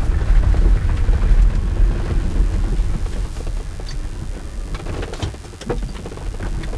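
Cabin noise inside a Reva G-Wiz electric car on the move: a low road and tyre rumble with no engine note, easing off as the car slows after about four seconds. A few sharp clicks come near the end.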